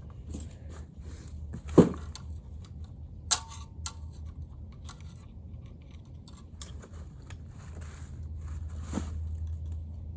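A few scattered metal knocks and clinks from work on a Wisconsin V4 engine being torn down, one followed by a short metallic ring, over a steady low hum.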